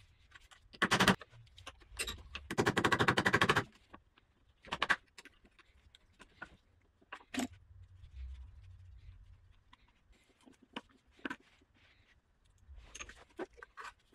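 A hand ratchet clicking while undoing the fasteners that hold a milling machine's gauge and front panel. There is a fast run of clicks lasting about a second, roughly three seconds in. Scattered metallic clicks and scrapes follow as the panel is worked loose.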